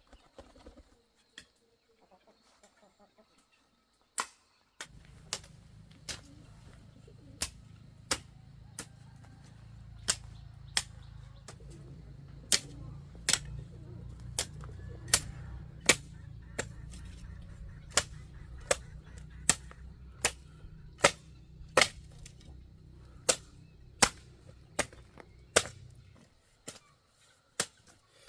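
A steady series of sharp knocks, about three every two seconds, like repeated blows of a tool. A low hum starts about five seconds in and stops near the end.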